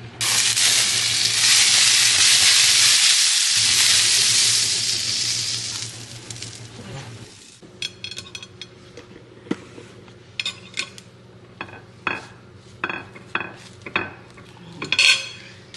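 Food sizzling in a hot pan for about six seconds, loud at first and fading out. Then a run of light clinks and taps of kitchen utensils.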